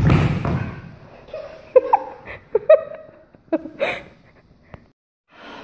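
A person falls onto a hardwood floor with a heavy thud, then several people giggle.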